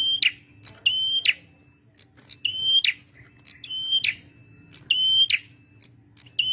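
Male prenjak merah singing: the same high whistled call repeated about every 1.2 seconds, six times, each a short steady note ending in a quick upward flick, with sharp ticks between the calls. A faint steady hum lies underneath.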